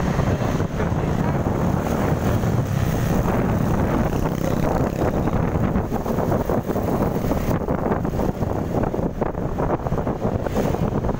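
Steady wind buffeting the microphone of a camera on a moving motorcycle, over the rumble of engine and road noise.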